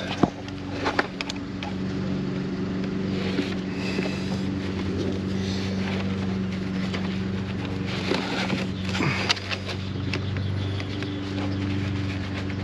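A steady low mechanical hum, like an engine running nearby, under scattered clicks, scrapes and rustles of hands working the loose battery cables into place.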